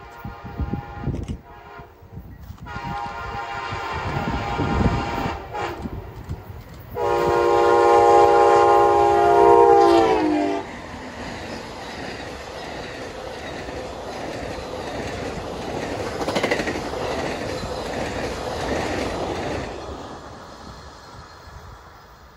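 Amtrak ALC-42 Charger diesel locomotives sounding the horn in several blasts as they approach. The last blast is long and the loudest, and it drops in pitch as the locomotives pass. Then the Superliner passenger cars roll by with a steady rumble and clatter of wheels on rail, fading away near the end.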